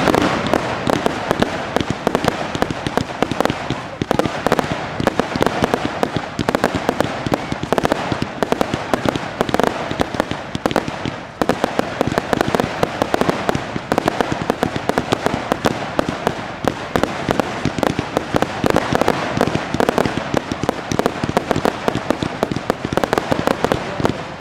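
Fireworks display going off in a continuous, rapid barrage of crackles, pops and bangs, with a brief lull about eleven seconds in.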